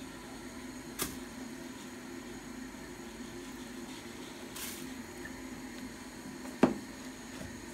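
Knife work on a wooden cutting board while raw pork is sliced into chunks: a light click about a second in, a brief plastic-bag rustle near the middle, and one sharp knock of the blade or meat on the board about two-thirds of the way through, over a steady low hum.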